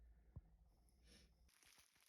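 Near silence: faint room tone, with one short soft click a little under half a second in.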